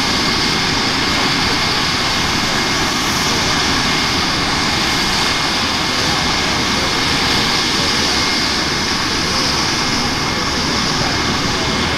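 Airbus EC135's twin Pratt & Whitney PW206B turboshaft engines and main rotor running steadily on the ground before take-off, with a steady high turbine whine over the rotor and engine noise.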